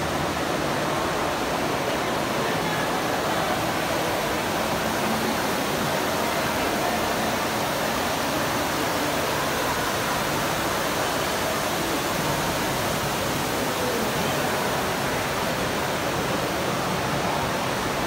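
Fountain water falling and splashing, a steady, even rush.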